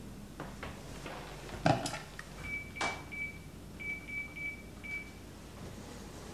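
A few handling clicks, then a run of short, high beeps all on one pitch, some longer and some in quick succession: keys being pressed on a phone to dial a call.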